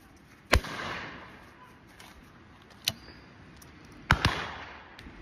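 Over-and-under shotgun fired once about half a second in, the report echoing away for about a second. A sharp click comes near the middle. Near the end two more shotgun reports follow close together from another gun while this one stands broken open.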